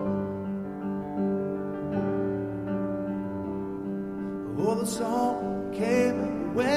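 Live piano and banjo playing a slow song, sustained piano chords under plucked banjo notes, with a man's singing voice coming in about four and a half seconds in.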